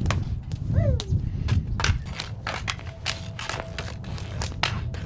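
Street hockey on a concrete driveway: sharp clacks of hockey sticks striking the ball and the pavement, several a second, over a low steady rumble.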